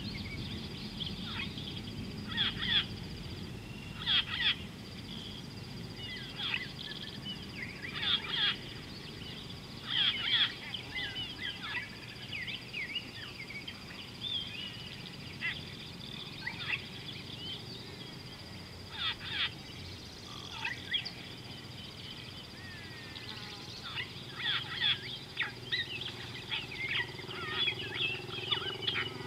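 Wild birds calling around a watering hole: short chattering calls every second or two, coming thicker near the end, over a steady high-pitched hum and low outdoor background noise.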